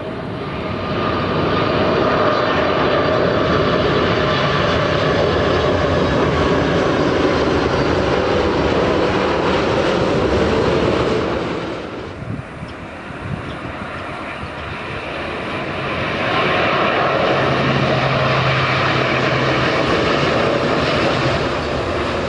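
Jet airliners on landing approach: a Boeing 747 freighter's four turbofan engines run with a steady, loud roar. The sound drops away about eleven seconds in, then builds again from an Airbus A350's engines as it comes in, with a low steady hum near the end.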